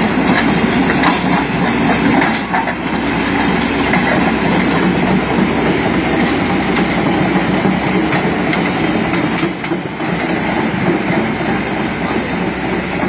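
Excavator running, its engine drone overlaid by a continuous metallic clanking and rattling typical of steel crawler tracks moving.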